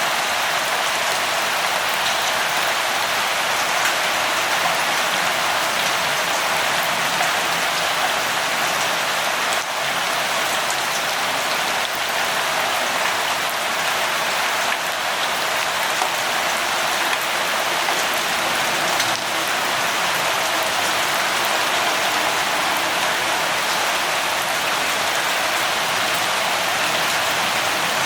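Steady rainfall, an even hiss of rain with scattered drop ticks, continuing without change.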